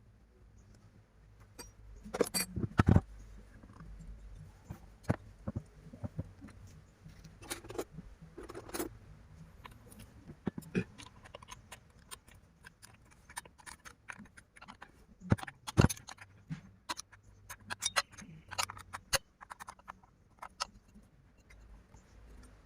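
Irregular metallic clinks and knocks of tools and chainsaw parts being handled during hands-on maintenance, with the loudest knocks a couple of seconds in and again near the middle.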